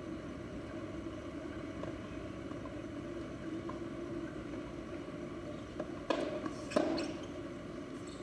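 Steady low background hum, then two sharp tennis ball impacts a little under a second apart near the end.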